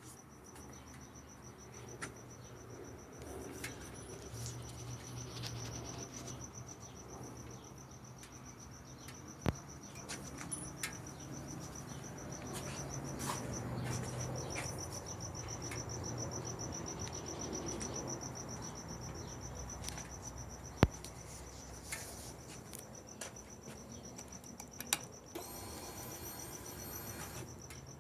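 Insects chirping in a steady high trill over a low background hum, with a few sharp clicks. Near the end a whine lasts about two seconds.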